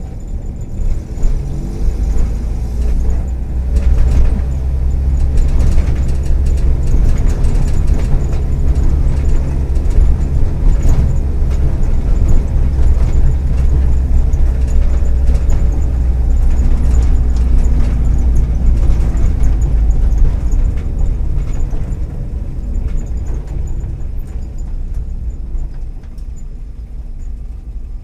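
Volkswagen EA111 1.4-litre four-cylinder engine of a 2009 Kombi running steadily under way, a deep low hum with many small clicks and rattles over it, easing off somewhat in the last third. The engine has worn spark plug leads and ignition coil, and an exhaust manifold the owner takes to be probably cracked; the rattles fit loose interior trim.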